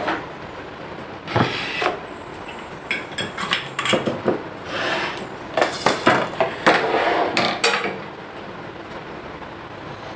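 A metal plate gripper clinking and scraping against a china plate and a steel wok as a plate of steamed fish is gripped and lifted out. Scattered clinks and knocks stop about eight seconds in.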